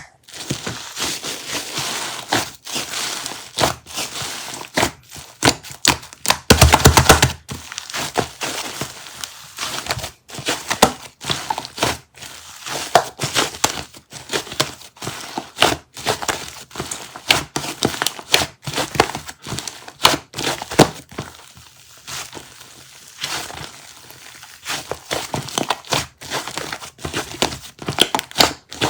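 Close-up crinkling and crackling of something being handled, with many quick irregular clicks; a louder, denser burst of crackling about six to seven seconds in.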